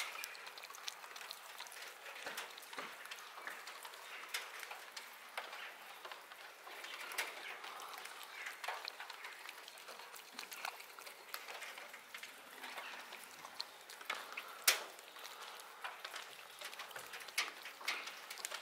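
A cat chewing chunks of wet cat food from a plastic tub: a steady run of small, irregular wet clicks, with one sharper click about three-quarters of the way through.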